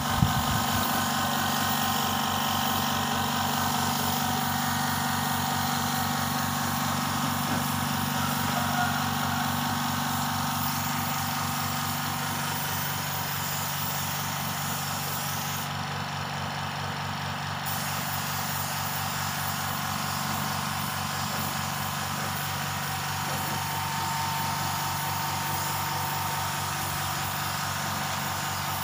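Air compressor running steadily with a fast, even pulse, under the hiss of compressed air and paint from a gravity-feed spray gun.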